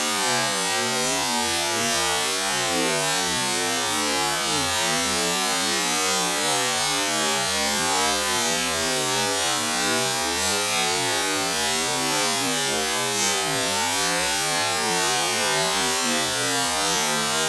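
Motorcycle engine running as the bike is ridden, a steady buzz whose pitch keeps rising and falling with the revs, over a constant hiss.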